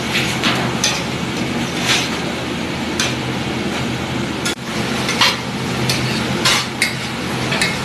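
Metal spatula and ladle scraping and clanking irregularly against a large flat griddle (tawa) as a big batch of tomatoes for pav bhaji is stirred and mashed, over a steady sizzle and a low, even background hum.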